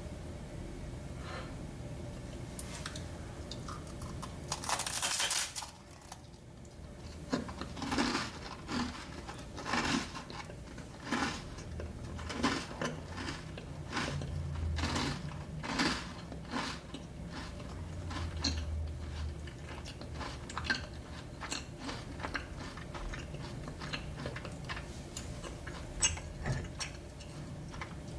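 Close-miked eating: chewing and mouth sounds of someone eating dessert, with irregular wet clicks and smacks, about one or two a second. A short, louder noisy burst comes about five seconds in.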